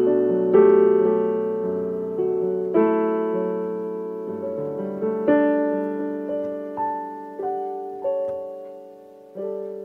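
Slow piano music: chords struck one after another, each fading away before the next, with a last chord struck near the end.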